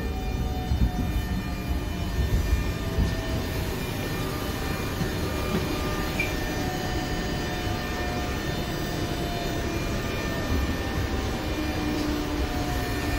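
Electric double-deck commuter train running, heard from inside the carriage: a steady low rumble, with a faint whine from the drive that falls slowly in pitch as the train slows, and a few knocks in the first few seconds.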